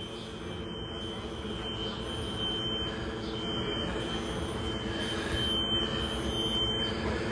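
Fire alarm sounding one steady, unbroken high-pitched tone over a loud low rumble, the whole growing gradually louder.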